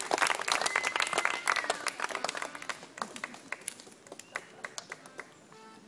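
Small crowd of guests applauding by hand: thick clapping at first that thins to a few scattered claps and dies away over the next few seconds.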